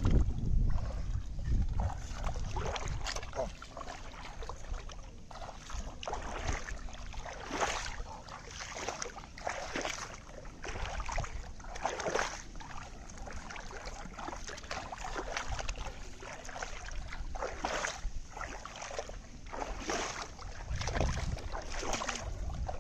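Shallow water splashing and sloshing in irregular surges as someone wades through it. Wind rumbles on the microphone at the start and again near the end.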